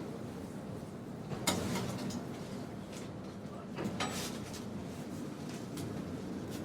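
Streetcar interior: the car's steady low rumble and hum, with a few sharp knocks and clacks, the loudest about a second and a half in and more around three to four seconds in.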